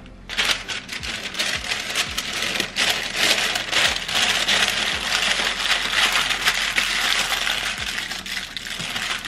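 Parchment paper crinkling and rustling steadily as it is folded and tucked under to close a cooking packet.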